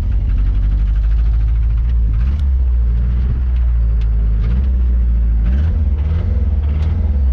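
Ford Ranger engine running steadily under way, a deep drone with a light knock: 'knocking a little bit', which the owner takes for rod knock. A few faint sharp clicks sound over it.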